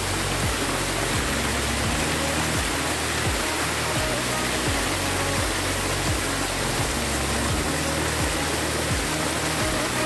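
Rushing water of a waterfall cascading over rocks, a steady noise, under background music with a steady bass beat about twice a second.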